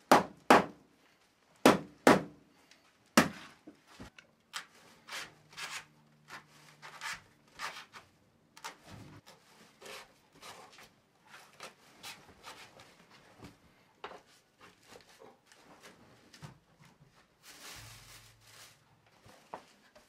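Wooden mallet knocking on a broomcorn broom held in a wooden clamp, five loud knocks in the first few seconds. These are followed by softer knocking and the rustle of dry broomcorn straw being worked by hand.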